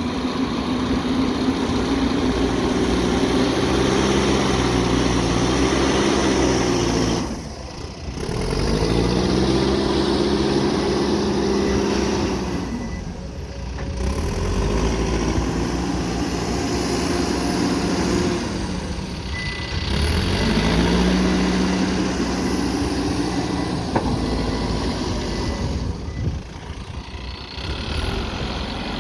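Backhoe loader's diesel engine working under load. It revs up and drops back in repeated cycles about every six seconds, rising in pitch after each lull.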